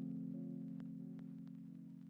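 Soft background music: a sustained chord that slowly fades, with a few light plucked or tapped notes over it.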